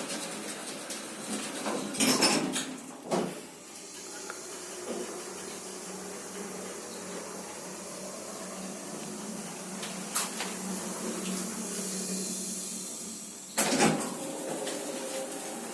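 Schindler D series hydraulic lift: sliding doors knocking shut, then the car travelling with a steady hum and hiss, then a loud clunk as it stops and the doors open.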